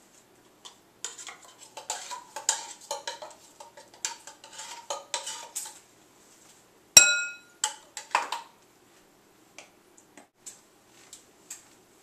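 Metal spoon scraping condensed milk out of a tin can and clinking against a ceramic mixing bowl: a busy run of scrapes and taps, then one sharp clink that rings briefly about seven seconds in, followed by a knock and a few light taps.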